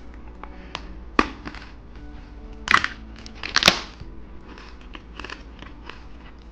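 Biting and crunching into hard candy: scattered sharp clicks and two loud crunches about three seconds in, over soft background music.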